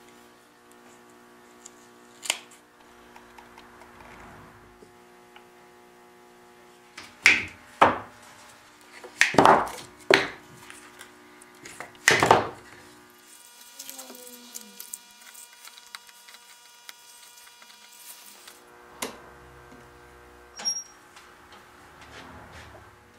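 Mallet knocking on wood: about five sharp blows within five seconds. A steady workshop hum lies under it.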